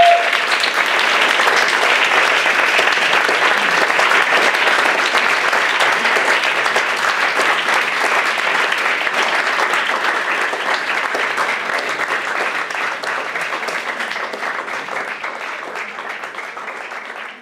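Audience applauding, a dense steady clatter of many hands clapping that slowly dies away over the last few seconds.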